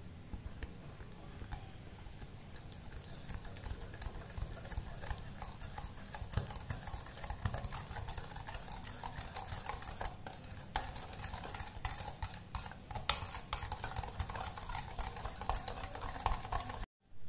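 Small wire whisk beaten fast in a glass mixing bowl, its wires clicking and scraping against the glass as curd and sugar are creamed together. One sharp clink about thirteen seconds in is the loudest moment, and the sound cuts off abruptly just before the end.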